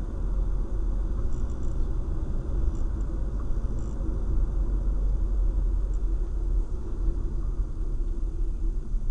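Steady low rumble of a car driving, its road and engine noise heard from inside the cabin through a dashcam's built-in microphone.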